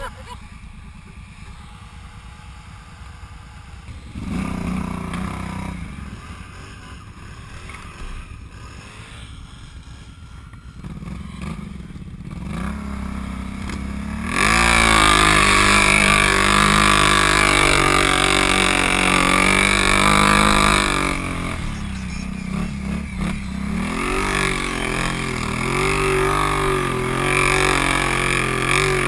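ATV engine idling, revving briefly a couple of times, then running loud under throttle about halfway through as the quad pulls away through deep snow, its pitch rising and falling with the throttle.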